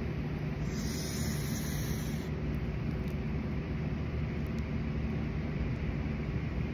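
A smoker's breath hissing briefly through a joint, a drag or the exhale of smoke, about a second in, over a steady low rumble and hum.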